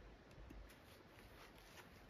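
Near silence, with faint rustles and small knocks as a branch is shifted by hand on a wooden stump.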